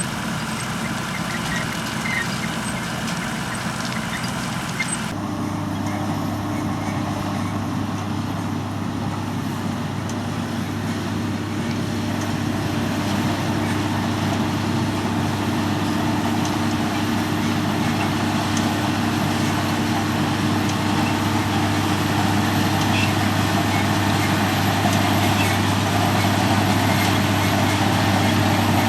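Potato-harvesting machinery engines running steadily. About five seconds in the sound changes abruptly to a different machine's steady engine hum, which slowly grows louder.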